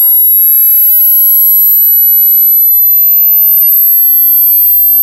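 Loud, very high-pitched synthesized sine tone, held steady and edging slowly higher, played as an "annoying sound". Beneath it a fainter tone dips to a deep hum within the first second, then sweeps steadily upward.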